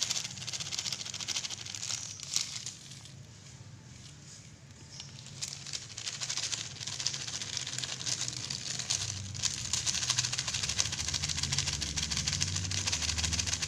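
Salt crunching and grating in a plastic bowl as it is scraped and pressed down over raw egg yolks to cover them, a dense fine crackle. It thins out for a few seconds and grows denser again from about six seconds in.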